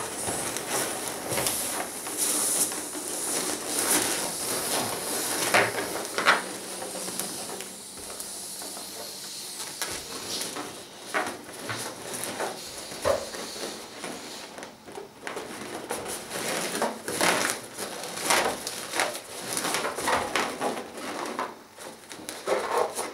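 Air hissing out of the neck of a clear latex balloon as it is let down over smaller balloons inside it, mostly in the first several seconds. Latex squeaking and rubbing under the hands as the balloons are pressed and shaped.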